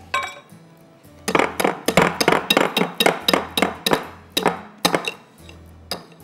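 A kitchen utensil clinking against a bowl about a dozen times in quick succession, roughly four strikes a second, with single clinks near the start and near the end, over steady background music.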